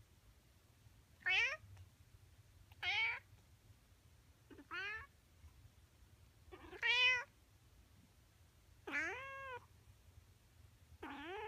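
Male Siamese cat meowing: six separate meows, one every couple of seconds, most sliding up in pitch.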